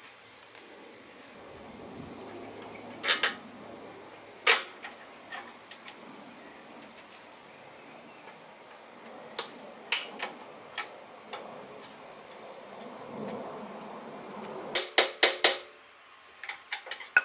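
Metal clinks and taps of a hand tool working at the rusted rear brake arm linkage of a 1969 Honda CT70, with some scraping between strokes. Scattered single clanks, then a quick run of about five sharp clanks near the end.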